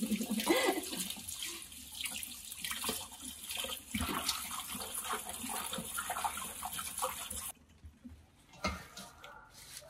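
Kitchen tap running into a stainless-steel sink, with leaves being handled under it; the water cuts off suddenly about seven and a half seconds in, leaving a few soft rustles and clicks.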